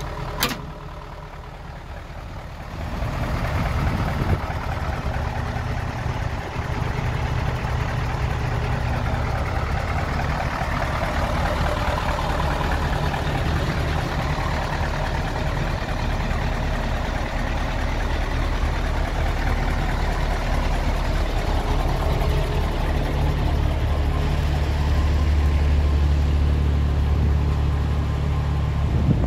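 Mercedes 1628 truck's diesel engine idling steadily, with a sharp click about half a second in. It is quieter for the first couple of seconds, then louder, and heavier in the low end from about 24 seconds on.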